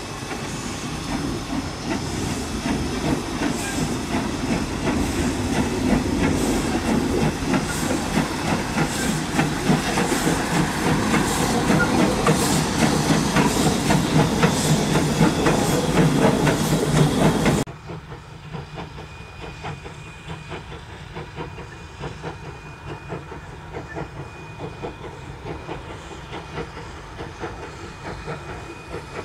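Steam locomotive NM25 working a passenger train, its exhaust chuffing in a steady beat with steam hiss, growing steadily louder as it approaches. About two-thirds of the way through it cuts suddenly to a quieter, more distant chuffing.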